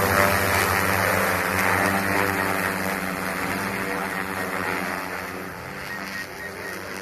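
DJI M300 RTK quadcopter's four propellers humming with steady pitched tones as the drone climbs, fading as it rises away overhead.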